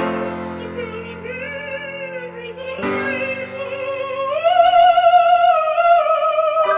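Operatic singing voice with strong vibrato over piano chords: one long held note, then a climb to a higher note held to the end. Piano chords strike at the start and again about three seconds in.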